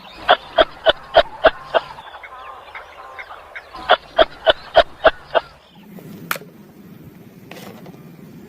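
Animal calls: two runs of short, evenly spaced pitched calls, about three a second, with softer chattering notes between the runs. From about six seconds in there is only a faint hiss, with one sharp click.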